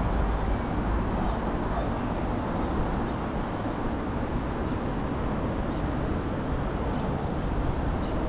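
Steady outdoor street ambience: an even low rumble and hiss with no distinct events.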